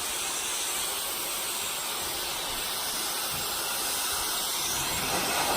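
Dyson hair dryer blowing steadily: an even rush of air with a faint high tone over it.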